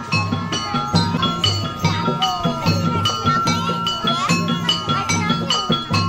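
Traditional Banjar percussion music: a steady beat of bright ringing metal strikes over regular low drum thumps.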